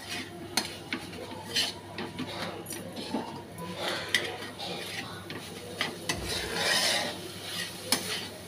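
Metal spatula stirring minced chicken filling in a kadai, with irregular clicks and scrapes of the spatula against the pan, the longest scrape a little after six seconds in.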